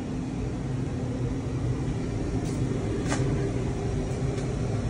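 Steady low machine hum and rumble, with a single sharp click about three seconds in.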